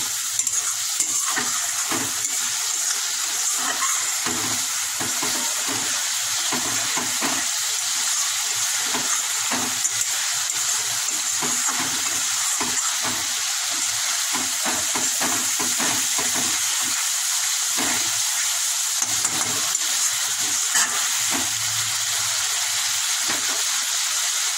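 Ground-spice and tomato masala sizzling and bubbling in hot oil in an aluminium wok while a metal spatula stirs and scrapes it across the pan, as the masala is fried down. A steady sizzle with frequent short scrapes.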